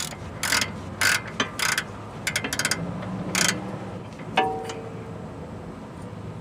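Hand ratchet on a 15mm socket clicking in short bursts as it loosens a track bar bolt, with a quick run of clicks partway through. About four seconds in, one sharp metallic clank that rings briefly.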